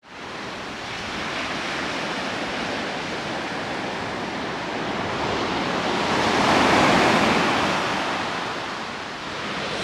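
Sea waves breaking and washing up a beach: a steady rush of surf that swells to its loudest about two-thirds of the way through, then eases off.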